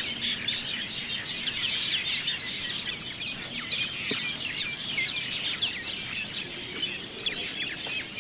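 Many birds chirping at once: a dense, continuous chorus of quick short calls.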